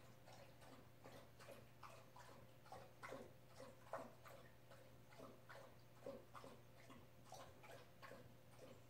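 Near silence with faint, irregular clicks and ticks, a few a second.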